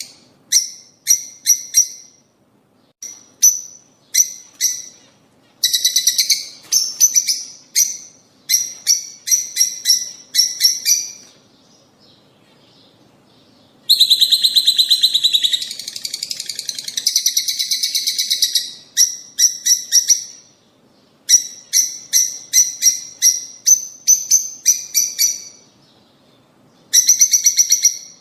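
Lovebirds calling: quick runs of sharp, high chirps with short pauses between them, and a longer, denser stretch of chattering about halfway through.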